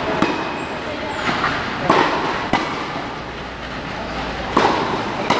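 A tennis ball struck back and forth with rackets in a doubles rally on a clay court: a handful of sharp pops, one to two seconds apart, over a steady background hum.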